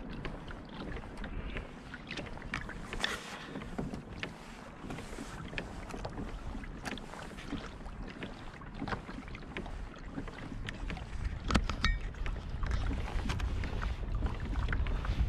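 Water lapping and splashing against the hull of a pedal-driven fishing kayak moving at a steady pace, with frequent small clicks. A low wind rumble on the microphone grows in the second half.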